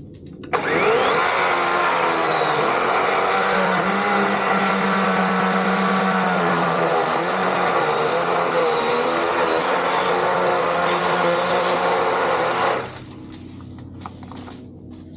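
DeWalt DCCS620 20V brushless cordless chainsaw whirring up to speed about half a second in, then running with its motor pitch sagging and wavering as it cuts into wood, before stopping suddenly near the end.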